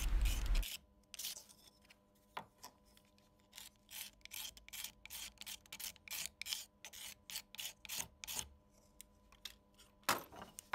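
Short rasping strokes, about two or three a second, of a hand tool scraping old glue residue off the underside of an acoustic guitar bridge, with a louder pair of strokes near the end.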